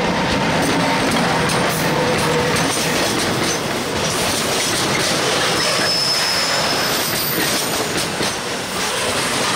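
Railway wheels rolling close by over a bolted rail joint with fishplates: a loud, steady rolling grind with repeated clacks as the wheels cross the gap in the running surface. A brief high wheel squeal comes about six seconds in.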